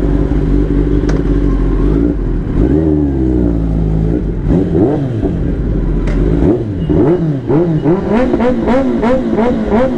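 Kawasaki ZX-10R's inline-four engine running at a steady note, then revving: its pitch rises and falls once, then climbs and drops again and again in quick succession over the last few seconds.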